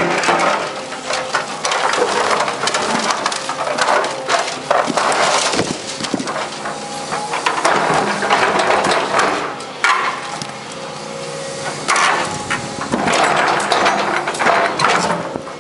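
Hydraulic excavator's diesel engine running steadily under load while its steel bucket scrapes, grinds and crunches through broken reinforced concrete, in repeated bursts of cracking rubble.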